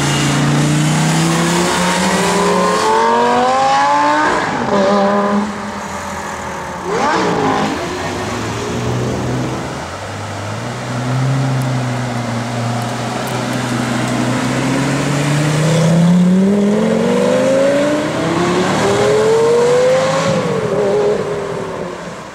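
Lamborghini Gallardo V10 exhaust under hard acceleration: the engine note climbs steeply in pitch, drops back, and after a quick rev climbs again in one long pull. The sound fades out near the end.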